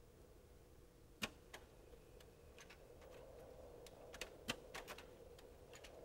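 Faint, sparse mechanical clicks from a Rock-Ola jukebox's record changer as it brings a record onto the turntable: two clicks about a second in and two more after four seconds, over a faint steady hum.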